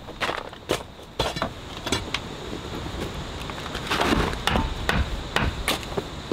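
Irregular sharp knocks and clinks of hard objects striking one another, several a second at times, over a low steady background.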